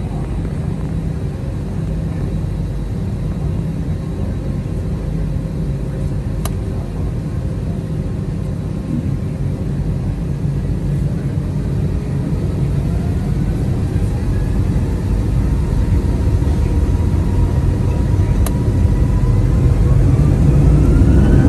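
Airbus A320 jet engines heard inside the cabin from a seat over the wing: a steady low rumble while the plane rolls onto the runway. About halfway through, a whine starts to rise in pitch and the sound grows louder as the engines begin spooling up for takeoff.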